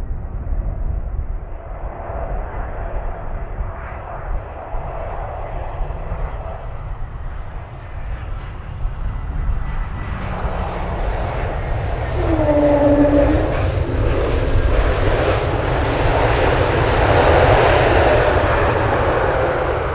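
Airbus A320neo's Pratt & Whitney PW1100G geared turbofan engines, a rushing jet roar that builds from about halfway through and is loudest near the end, with a pair of engine tones that bend in pitch for a moment as it comes by.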